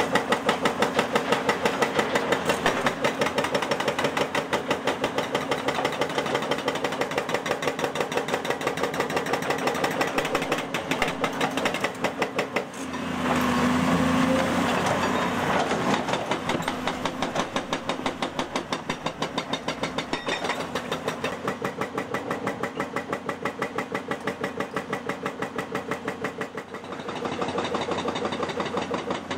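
Excavator diesel engine running with a fast, even pulsing beat. It works harder and gets louder for a few seconds about halfway through, and again near the end, as the machine takes hydraulic load.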